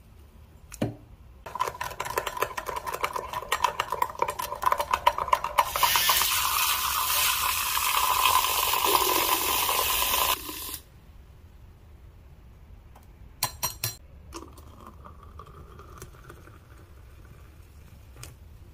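Handheld electric milk frother whipping coffee in a glass mug: it starts about a second and a half in with a rapid clatter against the glass over a steady whine, then runs as a steady, louder whir before cutting off suddenly about eleven seconds in. A few short clinks of glassware follow.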